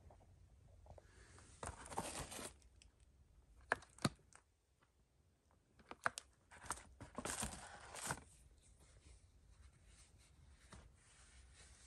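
Rustling and crinkling of paper and debris in short bursts, about two seconds in and again about seven seconds in, with a couple of sharp clicks around four seconds in.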